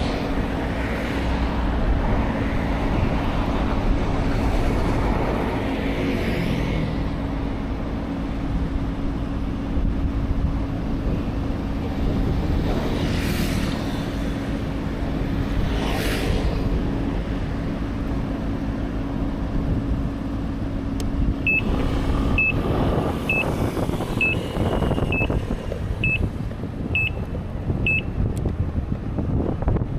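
A motor vehicle running with a steady hum and low rumble. Near the end come about eight short high beeps, a little under a second apart.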